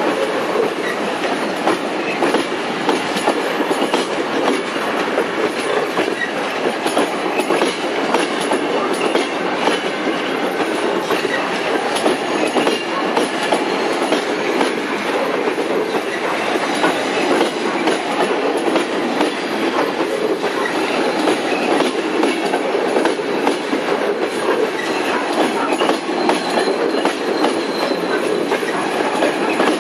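Passenger railway coaches rolling past close by: a steady rumble of steel wheels on the rails with a continuous run of clicks from the wheels passing over rail joints.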